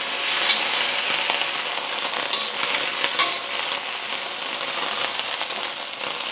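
Green beans sizzling in a hot steel wok, with a few metal scrapes and clicks from a wok spatula stirring them. The little water added is boiling off fast.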